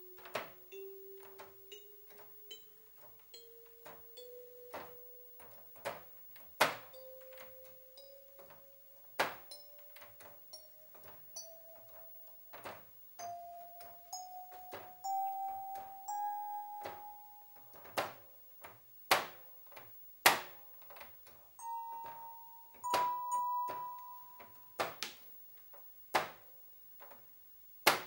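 Commodore Sound Expander FM synthesizer playing a plain, bell-like tone as single notes stepped slowly up a rising scale on a five-octave keyboard, each note held about a second. Sharp clicks break in between some of the notes.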